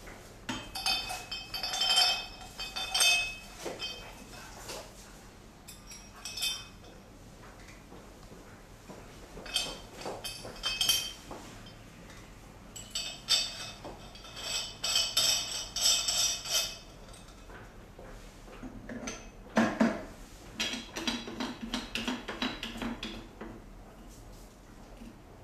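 Stainless steel parts of a Sunmile SMG33 electric meat grinder (grinding head, auger, cutting plate, trays) clinking, scraping and knocking as they are handled and fitted together during assembly, in scattered bursts of ringing metallic clinks, with a heavier knock about two-thirds of the way through.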